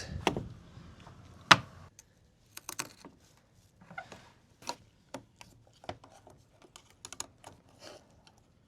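A sharp knock about a second and a half in, then a run of light, irregular clicks and taps as hard objects are moved and handled.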